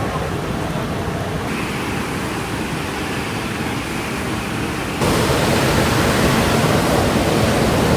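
Steady rushing of hot volcanic stream water, with no distinct events; the noise steps up suddenly and grows louder about five seconds in.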